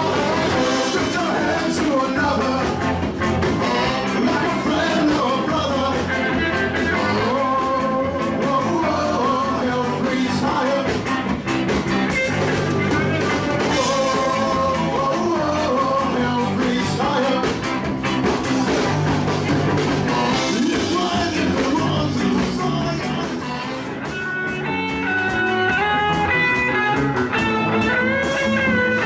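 Live ska-punk band playing loud electric guitar and drums with a singer's vocal line, dipping briefly in level near the end before coming back up.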